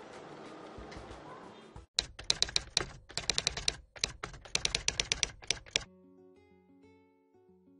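Typing sound effect: a rapid clatter of key clicks in quick runs for about four seconds while an on-screen caption types itself out. It stops about six seconds in, and soft plucked guitar music starts.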